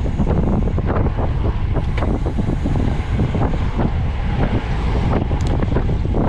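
Heavy wind buffeting the microphone of a camera riding along on a bicycle, a steady low rumble with many small knocks mixed in.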